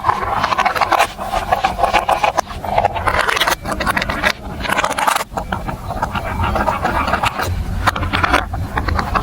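Marbles rolling and clattering along a plastic building-block marble run track, a dense run of rattling clicks. A low rumble grows in near the end.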